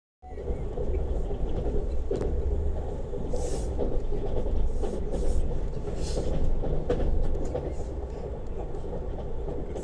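Lastochka electric train running on the rails: a steady low rumble of wheels and carriage, with a few sharp clicks and two short hissing rushes about three and a half and six seconds in.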